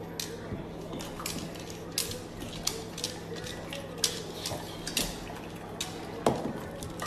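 Irregular sharp clicks and taps, about a dozen in all, the loudest near the end, over a low steady hum.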